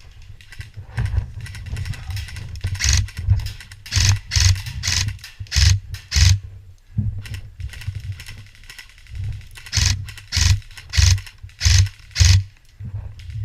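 Heavy, rhythmic footsteps of a player running, thudding about twice a second in two runs with a pause between, over rumble from the movement on a body-worn camera.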